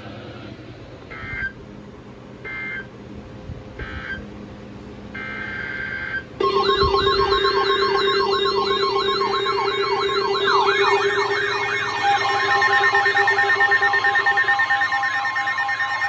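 Emergency Alert System tones: four short screechy data bursts, then from about six seconds in a loud siren-like wail warbling up and down a few times a second over steady alert tones, with more steady tones joining near the end.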